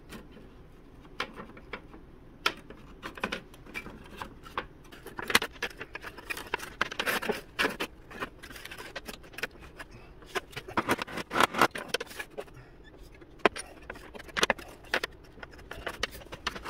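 Thin laser-cut wooden frame pieces of a model boat hull clicking, tapping and rattling against each other and the bench as they are handled and pressed into place, in irregular clusters of light clicks.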